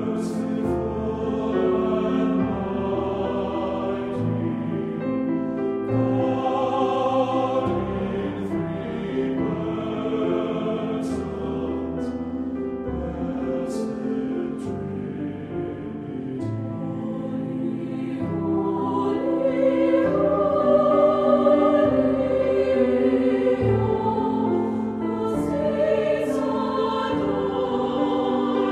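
A choir singing a slow sacred piece in long held chords, with the sharp 's' sounds of the sung words cutting through now and then. It swells louder about two-thirds of the way in.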